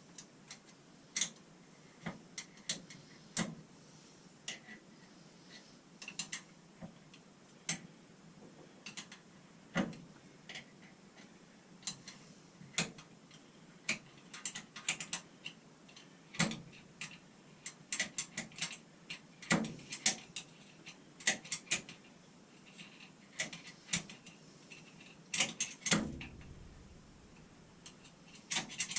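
Irregular metal clicks and clinks, some in quick clusters, as the lock collar on a Grizzly G0694 wood lathe is worked forward along the spindle to slide it off.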